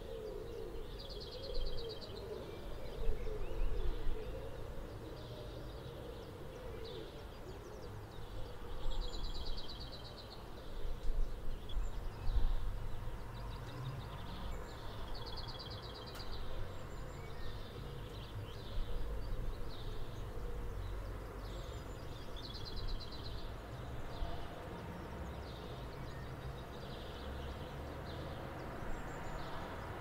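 Morning nature ambience of birds calling: a short, high, rapidly trilled call repeats every few seconds, with a low wavering call in the first few seconds. Under it runs a steady low rumble of distant traffic.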